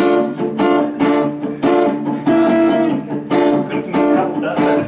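Guitar strumming chords in a steady rhythm: the instrumental intro of a song played live.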